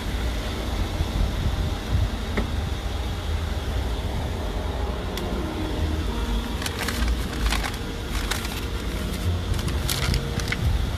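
Handling sounds at an open car door: a few clicks and rustles, as of a paper envelope pulled from the door pocket, about six to eight seconds in and again near ten seconds, over a steady low rumble.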